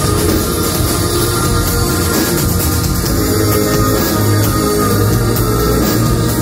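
Live heavy rock band playing loudly in a concert hall, with a dense wall of distorted guitars and drums at a steady level, heard from the crowd.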